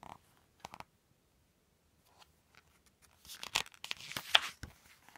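A book page being turned and smoothed down by hand: paper rustling and crackling close to the microphone, with a few faint clicks at first and the loudest crackles between about three and four and a half seconds in.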